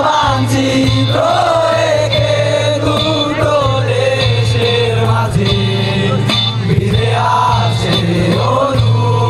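A group of young men singing a song together in unison, accompanied by acoustic guitars and a cajón.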